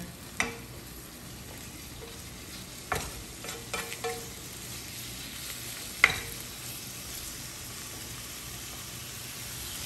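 Beef strips sizzling in hot oil in a nonstick wok while a wooden spatula stirs them, with a few sharp knocks of the spatula; the loudest knock comes about six seconds in.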